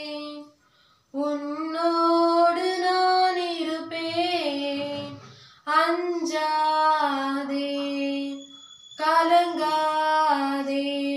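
A girl singing a Tamil Christian hymn solo and unaccompanied, in four long held phrases broken by short pauses for breath.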